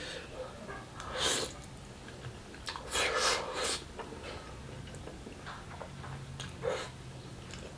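Close-up eating sounds of fried instant noodles: several short noisy slurps and breaths, the loudest about a second in and again around three seconds in, with chewing between them.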